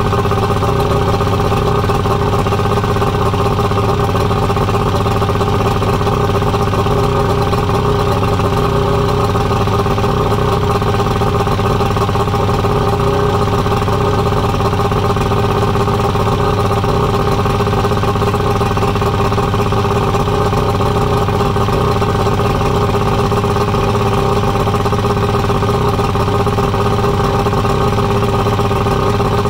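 Outboard motor running steadily at idle, an even hum that holds one pitch without revving.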